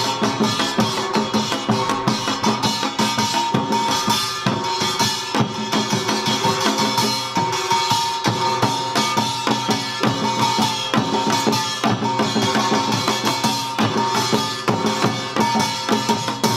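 Samul nori ensemble playing utdari rhythm: janggu and buk drums beat a fast, steady pattern while the kkwaenggwari and jing gongs ring over them.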